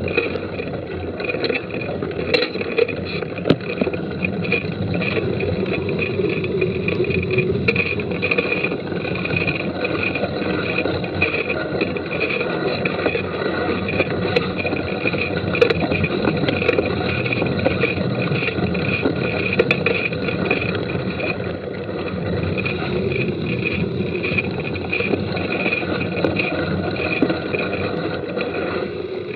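A mountain bike being ridden hard along a wet dirt forest trail: steady rumble and rattle of tyres and bike over the ground, with scattered sharp knocks from bumps.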